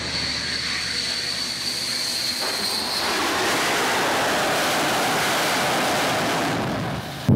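MiG-29K jet's twin turbofan engines, first a steady high whine on approach, then a louder, even roar from about three seconds in as the fighter touches down on the carrier deck; the roar drops off shortly before the end.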